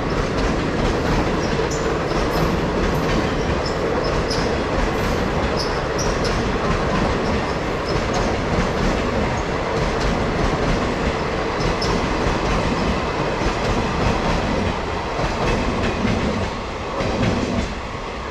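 Indian Railways passenger train's coaches rolling past at speed: a steady rumble and clatter of wheels over rail joints, with short high-pitched wheel squeals now and then. The noise falls away near the end as the last coach goes by.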